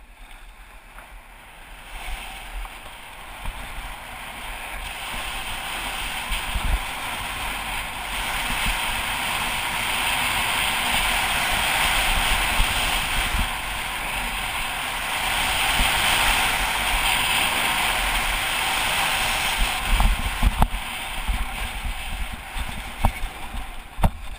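Skis hissing and scraping over packed snow while skiing downhill, with wind rushing on the camera microphone; the rush builds as speed picks up, is loudest in the middle, then eases, with a few sharp knocks near the end.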